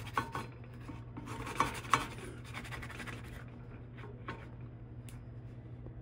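A spatula scraping along the bottom of a cast iron skillet as it is worked under a cooked egg round to flip it, with a couple of sharp clicks against the pan about two seconds in. The scraping stops after about three and a half seconds, leaving a few light taps over a steady low hum.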